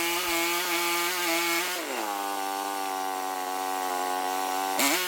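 Small sawmill running while sawing a log, a steady machine drone. About two seconds in its pitch slides down and holds lower, then jumps back up suddenly near the end.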